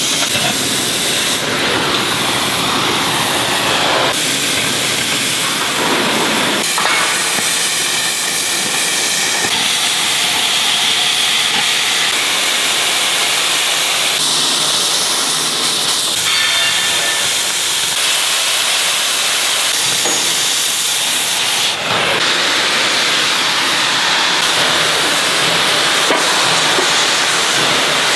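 Oxy-fuel cutting torch hissing steadily as its oxygen jet burns through steel plate. The tone of the hiss shifts abruptly a few times.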